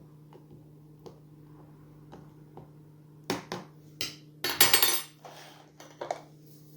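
A spoon stirring rehydrating rice and lentil dal in a food thermos: light clinks at first, then a few sharper knocks a little past three seconds in and a short scraping rattle around four and a half seconds.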